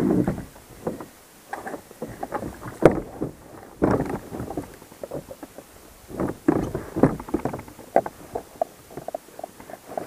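Hobie Mirage pedal drive being reset for reverse: irregular plastic clunks and knocks as the fins and pedals are worked against the kayak hull, with a run of quick short squeaks near the end.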